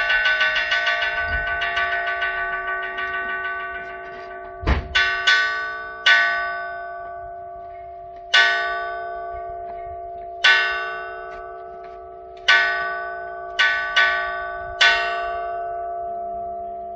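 Struck metal temple gong ringing. A fast roll of strokes fades out over the first four seconds or so, then about nine single strokes follow at uneven spacing, each one ringing on with several steady notes.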